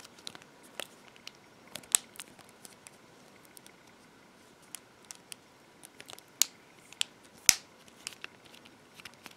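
Plastic clips of an LG Optimus L70's back housing clicking and snapping into place as it is pressed together around the edges. Scattered sharp clicks, a few of them louder than the rest.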